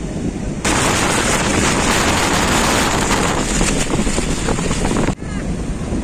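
Strong wind buffeting the microphone over heavy surf on a rough, monsoon sea. About half a second in, a louder, brighter hiss of wind and breaking waves takes over. It cuts off abruptly about five seconds in, and the low wind rumble comes back.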